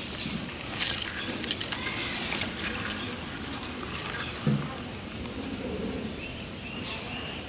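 Rural outdoor ambience with faint bird chirps and a cluster of sharp clicks and taps in the first couple of seconds.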